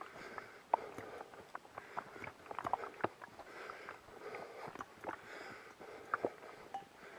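Footsteps along a forest trail, with twigs and leaf litter crackling and snapping underfoot in irregular sharp clicks, and the walker's breathing audible about once a second.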